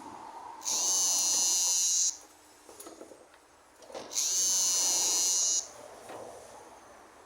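A high-pitched power tool whining in two bursts of about a second and a half each, rising to speed at the start of each and cutting off sharply.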